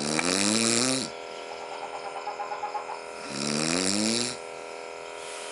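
A man snoring: two long snores about three seconds apart, each rising in pitch with a raspy hiss, and a faint flutter of breath between them.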